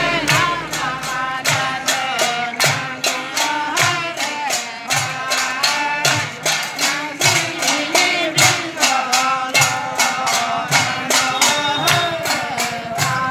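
Bhuang dance music: men singing in chorus over a steady rattling beat of about three to four strokes a second, played on hand-held bottle-gourd instruments. A deeper thud comes roughly every second and a half.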